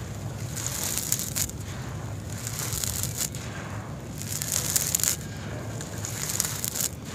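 Hands scooping and crumbling a clump of dry, gravelly sand-cement mix, the grit and small pebbles crunching and trickling in several separate bursts.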